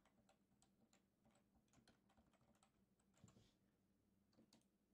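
Near silence with faint, scattered computer-keyboard typing clicks.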